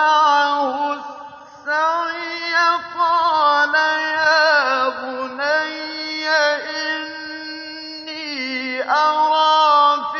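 A single man's voice chanting Quran recitation in the melodic mujawwad style. Long held notes with ornamented, wavering pitch glide from phrase to phrase, broken by a short pause about a second and a half in.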